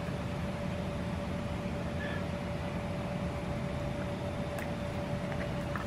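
Steady low background rumble with a faint constant hum, and a few light clicks near the end.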